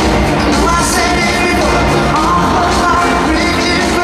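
A live pop-rock band playing with a male lead singer, heard through a stadium sound system from among the audience.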